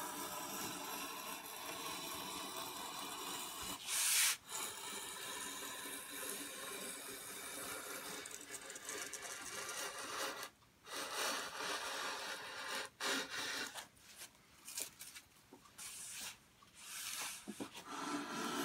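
Small hand plane shaving a balsa-wood block in repeated strokes, each a dry rasp as a curled shaving peels off. The strokes run almost continuously at first, with one louder stroke about four seconds in, then come as short separate passes with pauses between them in the second half.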